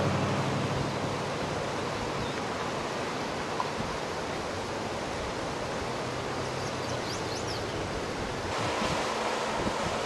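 Rushing floodwater of a swollen river: a steady, even roar of fast water over debris, growing a little louder about eight and a half seconds in.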